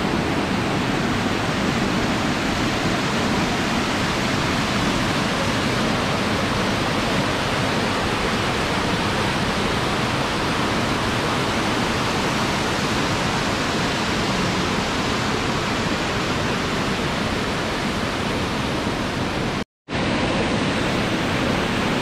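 Steady rush of a waterfall and the white-water rapids of its rocky mountain stream. It breaks once, a couple of seconds before the end, for a split-second gap of silence.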